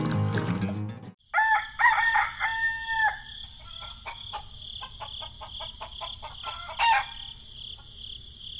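A rooster crowing a cock-a-doodle-doo of about two seconds, ending on a long held note, followed by a short single call a few seconds later. A steady high chirring of crickets runs underneath.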